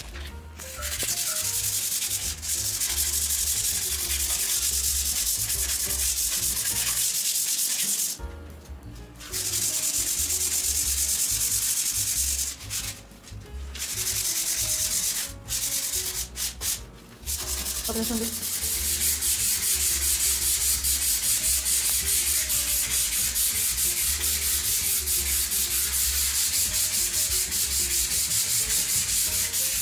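Hand sanding of dried wall putty with an emery sheet, rubbed back and forth in quick strokes: a steady scratchy hiss. It stops briefly a few times in the first half, then goes on in an even stroke-by-stroke rhythm.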